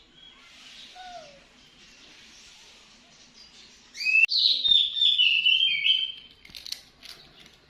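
A bird chirping: a faint call about a second in, then a loud run of high, wavering chirps for about two seconds from about four seconds in, opening with a sharp click, followed by a few faint clicks.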